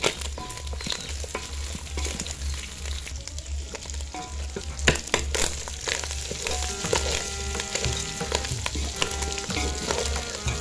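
Chunks of pork sizzling as they fry in an aluminium pot, stirred and scraped with a wooden spatula: a steady crackling hiss with scattered scrapes and knocks of the spatula against the pot, the loudest about halfway through.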